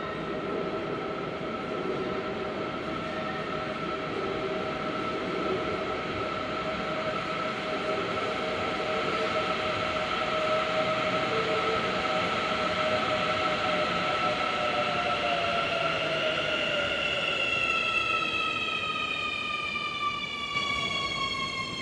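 Santiago Metro Line 6 train arriving at the platform. Its electric traction drive gives a steady whine over the running noise of the wheels, growing louder as it enters. In the last few seconds the whine slides down in pitch as the train brakes to a stop.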